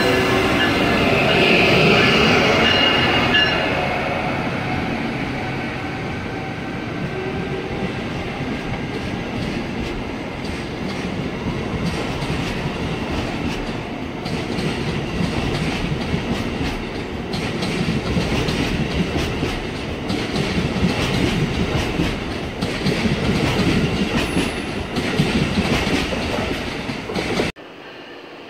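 Amtrak Northeast Regional train led by Siemens ACS-64 electric locomotive 600 passing close by, its Amfleet coaches rumbling and clattering over the rail joints. The sound cuts off suddenly near the end.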